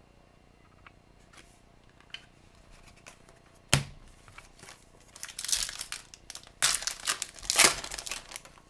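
A hockey card pack's foil wrapper being handled and torn open. Quiet at first with a few light ticks, then a sharp click a little before the middle, then a good deal of crinkling and tearing through most of the second half.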